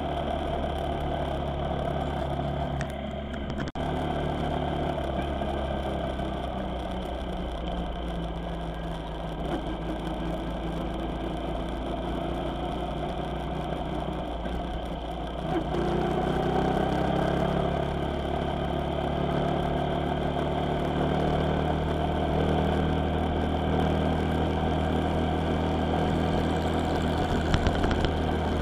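Vehicle engine running while driving on the road. About halfway through it gets louder and its pitch rises as the vehicle picks up speed.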